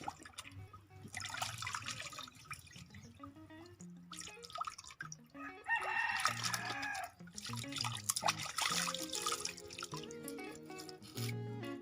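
Background music with steady notes, and a rooster crowing once about six seconds in.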